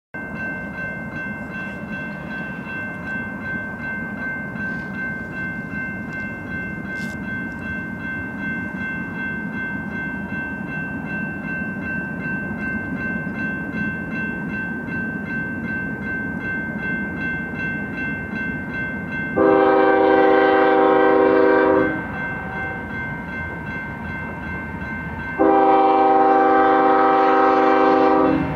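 Approaching Union Pacific freight train led by GE C45ACCTE locomotives: a steady rumble under a grade-crossing warning bell that rings on throughout. The lead locomotive's air horn then sounds two long blasts, the loudest sounds, about two-thirds of the way in and again near the end, as part of its crossing signal.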